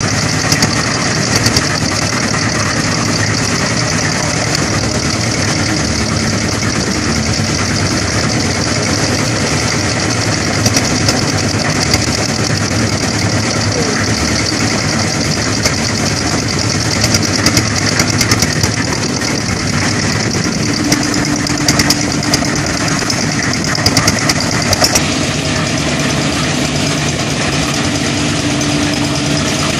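Reversible concrete mixer's engine running steadily, with occasional brief clanks from the mixer and a high hiss that stops about 25 seconds in.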